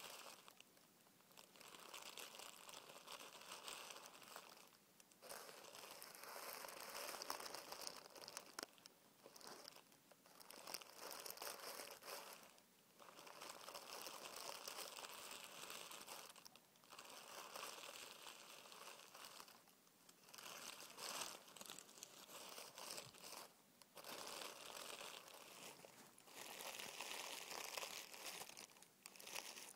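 Tissue paper being crinkled and rubbed by hand: soft rustling and crackling in bouts of a few seconds, with short pauses between them.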